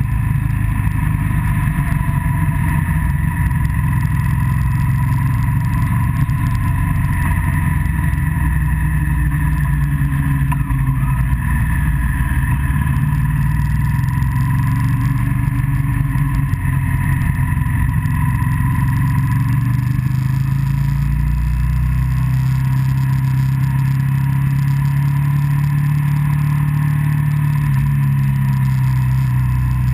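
A road vehicle's engine running steadily while driving along, with wind and road noise on the onboard camera's microphone; the engine note shifts slightly about two-thirds of the way through.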